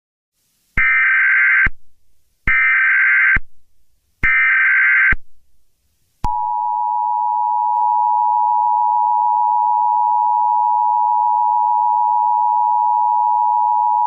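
Emergency Alert System tones: three bursts of about a second each of the screeching SAME digital header, then, about six seconds in, the steady two-tone EAS attention signal (853 and 960 Hz together) held for about eight seconds.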